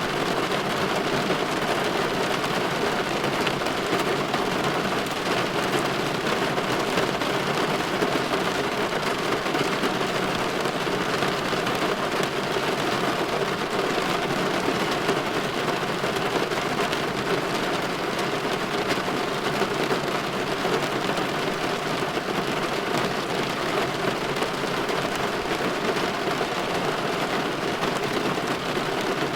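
Steady rain on a window pane: an even patter with fine drop ticks, holding level throughout with no rumble or let-up.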